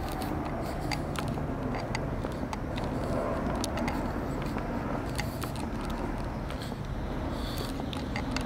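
Hand-held camera carried by someone walking: a steady low rumble with scattered light clicks and taps from handling and footsteps.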